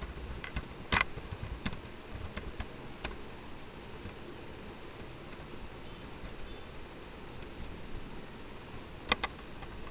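Computer keyboard typing: short runs of keystrokes clustered in the first three seconds, then a few sparse taps, and a close pair of sharp clicks near the end.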